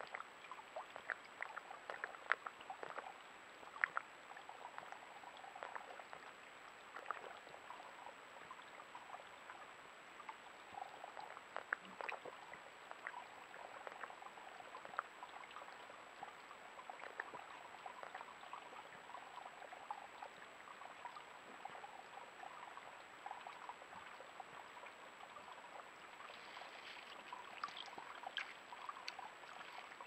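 Small waterfall trickling steadily over rock into a shallow pool, with many small sharp clicks and splashes as a Coues whitetail buck laps water.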